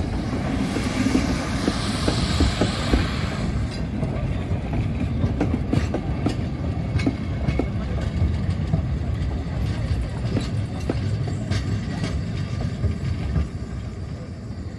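Narrow-gauge steam locomotive pulling away with a train: steam hissing from the open cylinder drain cocks for the first few seconds, then the wagons and carriages rumbling and clicking over the rail joints and pointwork as they roll past.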